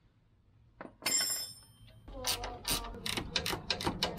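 Ratchet spanner clicking rapidly, about five clicks a second, as a nut on the strut is run on. It starts about two seconds in, after a single metallic clink of tool on metal.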